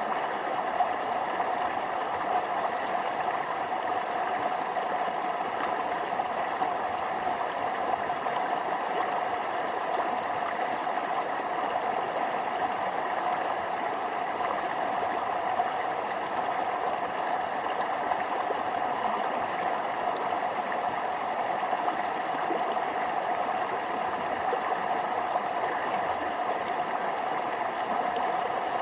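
Forest stream running over small waterfalls: a steady, unbroken rush of flowing water.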